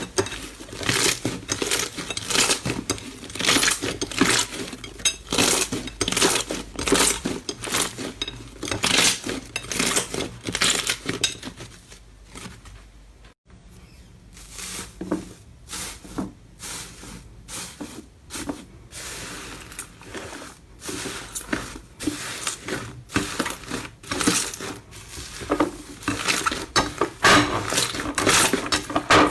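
Slime being handled, squished and pressed by hand: a dense run of crackling clicks and pops, with a brief break about thirteen seconds in.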